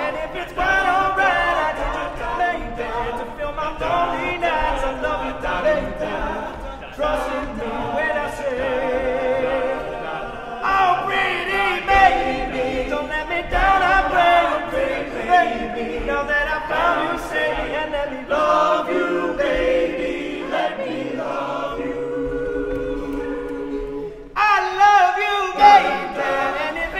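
All-male a cappella group singing in harmony, voices only with no instruments. The sound grows suddenly louder and fuller about 24 seconds in.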